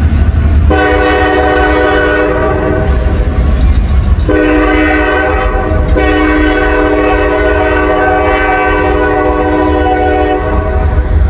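Diesel locomotive's multi-chime air horn sounding three blasts (a long one, a short one, then a longer held one) as a crossing signal, over a steady low rumble.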